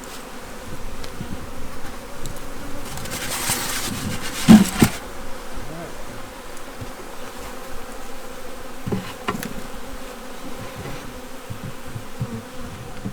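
Honey bees buzzing steadily around an open hive. A loud knock about four and a half seconds in, with rustling around it, and two lighter knocks near nine seconds.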